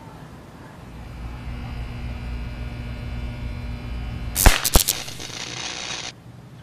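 Electrical hum building for a few seconds, then two sharp cracks in quick succession about four and a half seconds in, followed by a hissing crackle that cuts off suddenly about a second and a half later: the sound of a high-voltage arc at a utility pole's insulator bushings.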